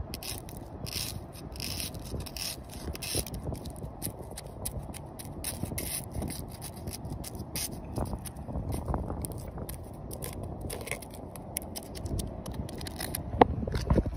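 Apple snail egg clutch being crushed and scraped, a continuous run of small irregular crackles and scraping, with a couple of louder clicks near the end.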